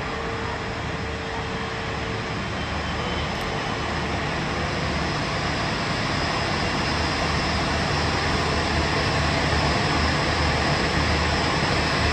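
Boeing 787-9 airliner's Rolls-Royce Trent 1000 jet engines running at taxi idle as it taxis in toward the gate, a steady jet noise growing gradually louder as the aircraft draws closer.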